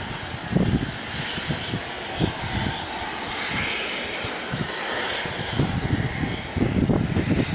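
Distant rumble of the two LMS steam locomotives 46233 Duchess of Sutherland and 6201 Princess Elizabeth working a train, heard with irregular low buffeting that grows heavier near the end.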